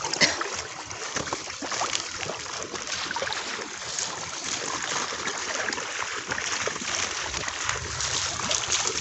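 Water splashing and dripping in many small, irregular splashes, as a wet fishing net is handled in the water.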